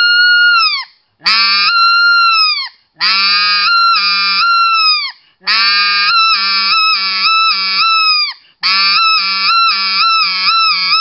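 RedBone specklebelly goose call (a short-reed call) blown in five loud, high-pitched blasts of steady pitch. The first blasts are clear air. From about three seconds in, a low buzz of the caller's voice runs under the tone (voiced air). The last two blasts are chopped into rapid pulses.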